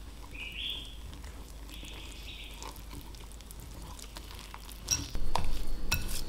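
Wire whisk stirring pancake-like batter in a glass bowl. It is soft at first while working the dry flour, then from about five seconds in it gets louder, with wet stirring and repeated sharp clinks of the whisk against the glass.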